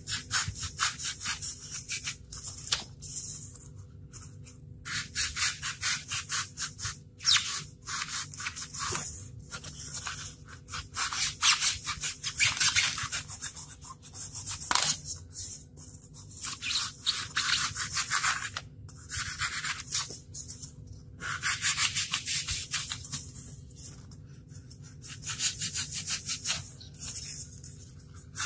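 Utility knife blade sawing back and forth through a block of expanded polystyrene foam: runs of quick rasping strokes broken by short pauses.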